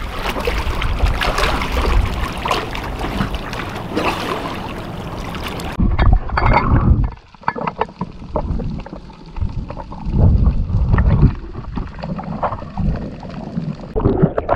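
Water and wind noise at the surface for the first few seconds. Then, after a sudden change, muffled underwater sound of a camera held below the surface, with low rumbling, gurgling and short knocks.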